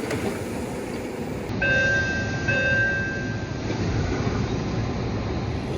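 MBTA Orange Line subway car door chime: two pitched tones, a short one then a longer one, sounding over the steady rumble of the train.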